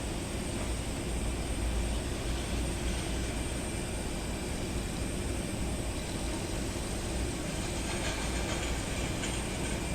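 Jet airliner engines running on the airfield: a steady rumble with a faint high whine.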